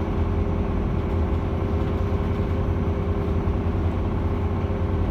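A cruise boat's engine running with a steady low drone.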